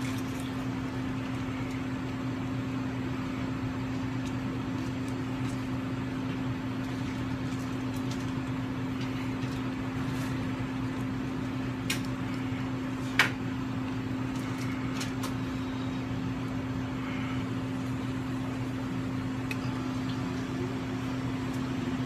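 Steady low hum of refrigeration and air-handling machinery, with a few light clicks. The sharpest click, about 13 seconds in, comes as the lid and plunger are set on a glass French press.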